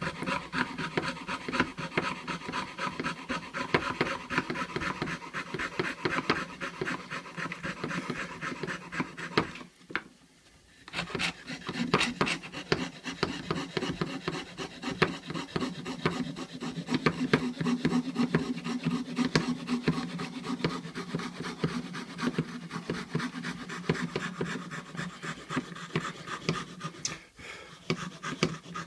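Hand fretsaw cutting through a wooden board with quick, even up-and-down strokes, the blade rasping on each stroke. The sawing breaks off briefly about ten seconds in, then carries on.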